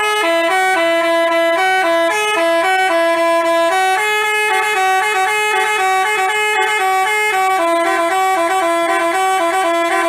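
Basuri telolet bus horn playing a quick melody, its tones jumping rapidly from note to note in a continuous tune.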